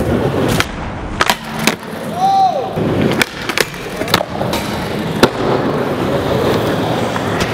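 Skateboard wheels rolling on a smooth skatepark surface, broken by several sharp clacks of the board popping, landing and striking a metal handrail.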